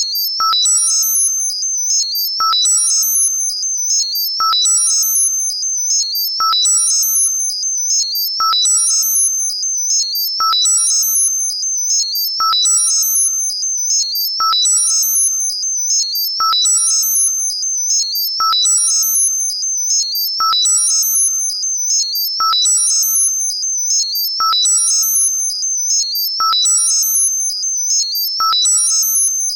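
Synthesized high-pitched tinnitus-masking sound in a loop that repeats about every two seconds. Each cycle starts with a click and a short, lower ping, followed by a cluster of very high notes stepping up and down over a steady high whistle.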